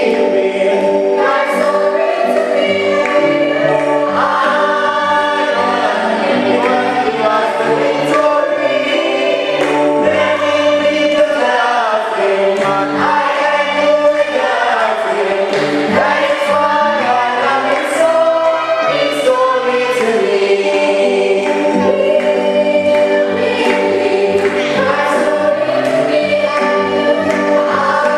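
A group of voices singing a hymn together, with sustained notes held continuously.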